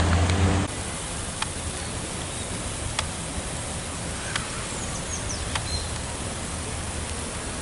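Outdoor park ambience: a steady hiss with a few sharp clicks scattered through it and faint, brief high bird chirps about halfway through. A low traffic rumble cuts off within the first second.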